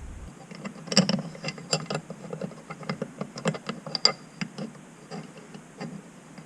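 Irregular small metal clicks and taps as the parts of an ATV electric starter motor are handled and fitted together, its dogs being lined up with their grooves.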